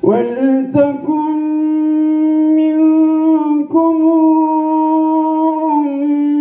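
A single voice reciting the Quran in the drawn-out melodic style, holding long, slightly wavering notes and breaking off briefly twice.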